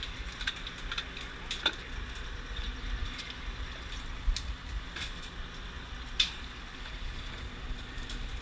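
Steady low rumble of a fishing boat's engine, with scattered sharp clicks and crackles over it.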